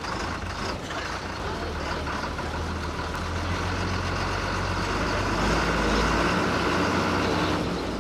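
Diesel bus engine running under load with a steady low drone. A higher whine builds from about three seconds in, gets louder, and cuts off sharply near the end.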